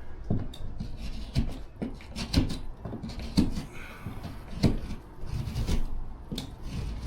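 Irregular knocks and scraping as a drywall panel is worked by hand, about one knock every second, with no power tool running.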